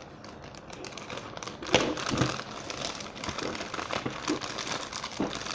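Toy packaging crinkling and rustling as it is handled and thrown away, with irregular crackles and a louder knock about two seconds in.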